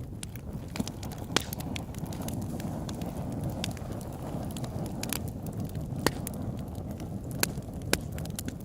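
Wood campfire crackling: irregular sharp pops and snaps, a few louder ones standing out, over a steady low rush.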